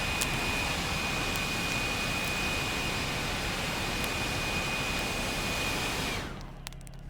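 A blower running steadily, a rushing blast of air with a fixed high whine, forcing air into the coals of a brush burn pile. It stops about six seconds in, leaving a quieter low engine hum.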